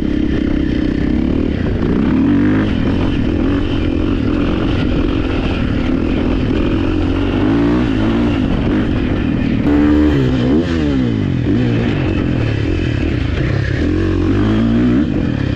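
A 2023 Husqvarna FC450 motocross bike's 450cc single-cylinder four-stroke engine under way on a ride, its revs rising and falling again and again as the throttle is worked.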